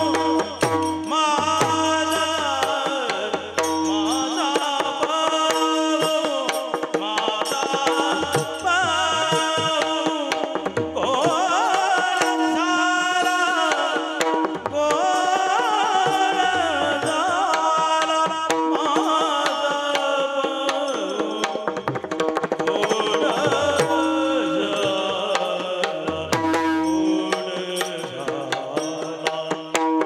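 Marathi devotional bhajan: male voices sing a gliding melody into microphones over the continuous shimmer of brass hand cymbals (taal). A hand drum thumps in rhythm under a steady drone.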